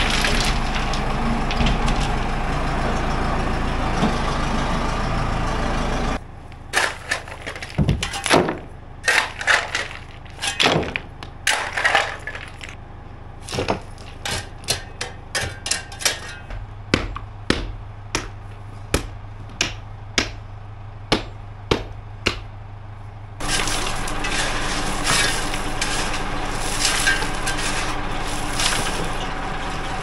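A backhoe loader's engine runs while crushed stone pours from the front bucket into a timber form. For most of the middle stretch a hand shovel scrapes and strikes the stone, many sharp clinks about one to two a second. The machine's engine running and the pouring sound return near the end.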